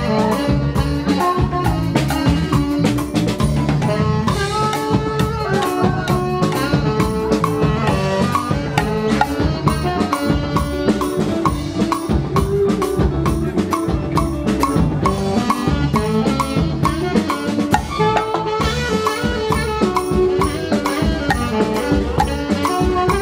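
Live band playing an upbeat instrumental, an alto saxophone carrying the melody over a steady drum-kit beat.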